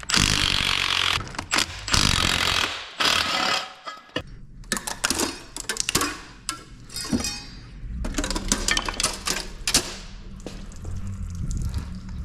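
Several loud bursts from a power tool, then scattered clinks and knocks of metal tools and parts being handled.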